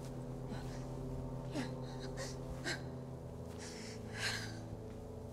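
Short, breathy gasps, about six of them, over a low, steady sustained drone.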